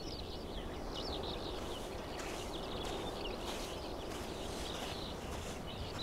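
Open steppe ambience: a steady low rush of wind with small birds chirping and trilling in short high-pitched snatches.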